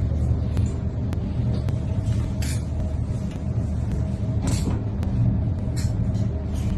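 A steady low rumble with three short hissing rustles, about two and a half, four and a half and nearly six seconds in.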